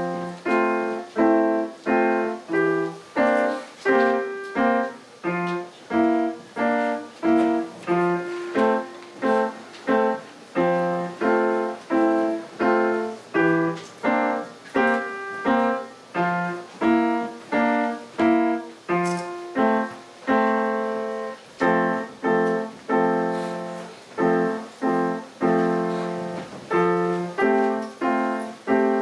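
Solo piano playing a simple tune, notes and chords struck about twice a second, each one dying away, with a few longer held notes.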